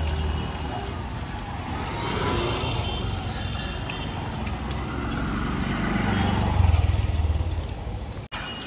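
Street traffic noise with a motor vehicle's engine passing close by, swelling to its loudest about seven seconds in.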